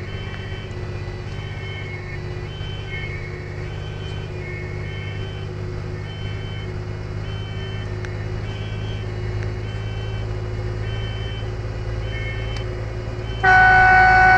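Fire engine heard from inside its cab on an emergency run: the engine and road noise drone steadily while its siren alternates between two pitches, high-low, about once a second. Near the end a loud horn blast of about a second sounds over it.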